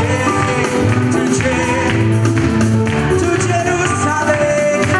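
Loud, upbeat Portuguese-language gospel music with singing, amplified through a sound system.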